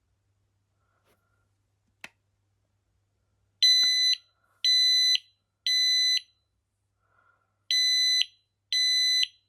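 FireAngel FA6620 optical smoke alarm: a click as its test and silence button is pressed, then its shrill test-mode alarm tone, beeping in a group of three about a second apart, a short pause, and the next group starting. This is the tone the test button gives, different from the tone it sounds when smoke sets it off.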